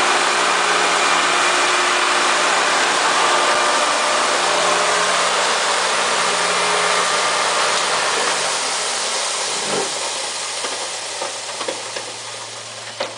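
Electric grain mill running steadily with a loud hissing whir and a low motor hum as flour pours out of its spout into a bucket, the sound dying away over the last few seconds.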